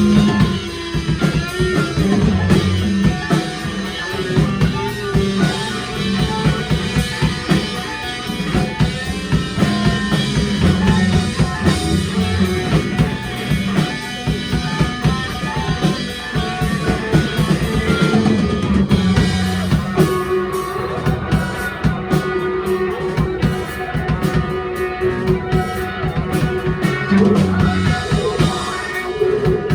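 Live rock band playing: electric guitar, bass and drum kit.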